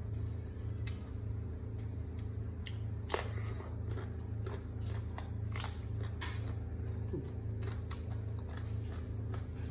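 A person chewing and biting boiled octopus and crisp raw vegetables close to the microphone, with many short wet clicks and crunches, the sharpest about three seconds in. A steady low hum runs underneath.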